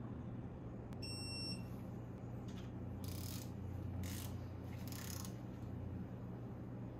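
Digital torque wrench beeping once, a short high electronic tone, as it reaches its set torque of 30 ft-lb on a cylinder head stud. A few short rasps follow from the wrench's ratchet head as it is worked on the next studs.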